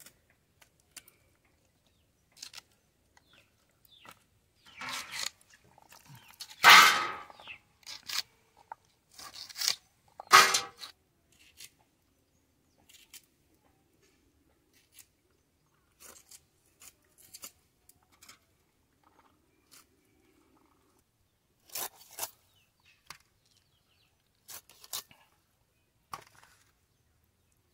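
Short crisp crunches and scrapes of a boti blade, one at a time with pauses between, the loudest clustered between about 5 and 11 seconds in: green onion stalks being cut and scales being scraped off fish.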